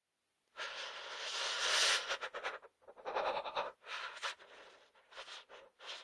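A person shivering from the cold: a long loud breath out starting about half a second in, then shaky, stuttering breaths in and out with short gaps.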